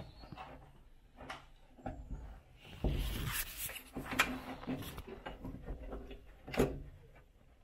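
A steel shim and bolts being worked in behind a VW T2 door bracket by hand: a few light metal clicks and knocks, with a scraping, rubbing stretch about three seconds in.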